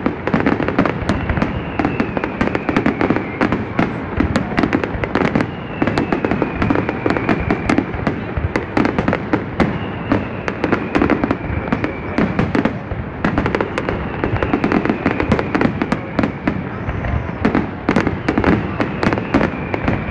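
Fireworks display: a dense, unbroken barrage of aerial shell bursts and crackling bangs. A faint high tone that slides down recurs every few seconds.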